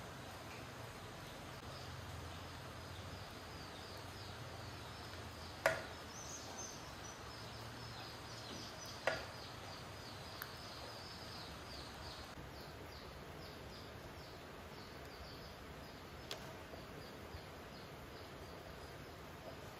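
Quiet rural outdoor ambience with a low hum and a quick run of short, high chirps, several a second, from a calling animal. Two sharp knocks stand out, the first about six seconds in and the second about three seconds later.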